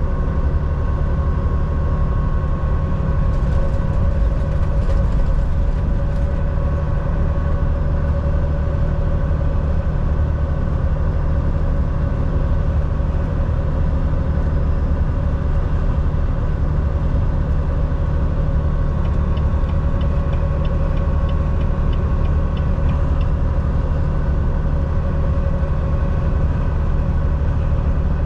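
Semi truck's diesel engine and road noise heard from inside the cab while driving: a steady low drone. About two-thirds of the way through comes a faint quick ticking lasting a few seconds.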